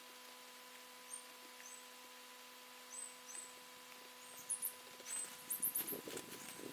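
Faint, high, thin bird chirps a few times, then a stretch of rustling and handling noise from about four and a half seconds in, over a faint steady hum.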